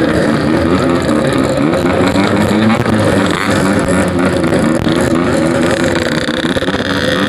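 Yamaha RX-King two-stroke engine with a packing-power exhaust, ridden at low speed, its pitch rising and falling as the throttle is opened and closed.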